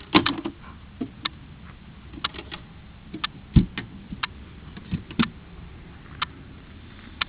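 Irregular small clicks and knocks from a handheld camera being handled and moved, with a louder cluster of knocks just after the start and a heavier knock about halfway through.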